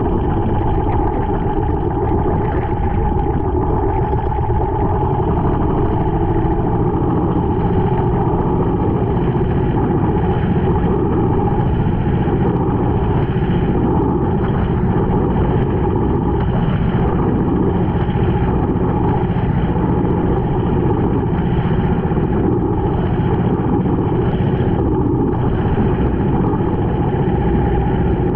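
Small outrigger fishing boat's engine running steadily at speed, with water rushing and splashing along the hull and outriggers.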